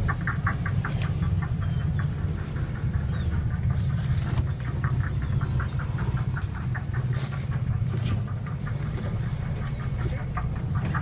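Sportfishing boat's engine running with a steady low rumble, under runs of rapid, evenly spaced clicking from a fishing reel as line is worked during a fight with a hooked marlin.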